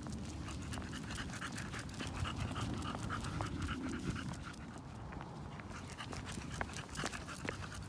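A small flat-faced dog panting steadily on a walk, with scattered sharp clicks of steps on the concrete sidewalk.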